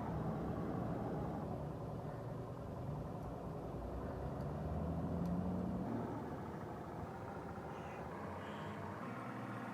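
An engine running with a steady low rumble, its pitch shifting a little and easing lower and quieter about six seconds in.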